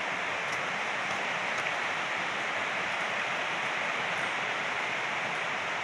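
Steady rush of a river's running water.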